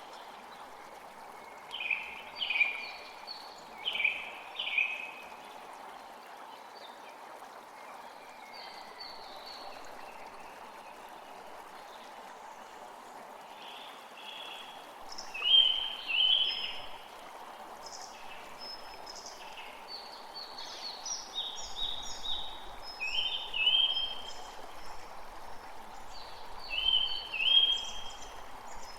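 Forest creek flowing with a steady rush, while songbirds sing bright, repeated phrases over it: a few short songs early, then more often in the second half.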